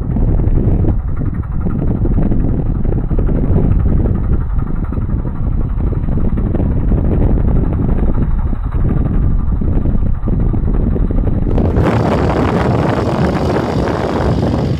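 Massey Ferguson 6475 tractor's six-cylinder diesel engine running steadily as the tractor drives past. About twelve seconds in, the sound turns brighter and harsher.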